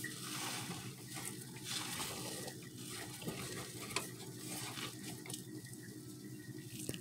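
Wooden spoon stirring thick, half-cooked corn dough in a metal saucepan, with soft scrapes and taps against the pan about once a second.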